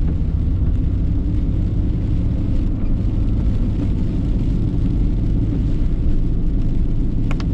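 Steady low rumble of road and engine noise inside a car being driven, with a few brief clicks near the end.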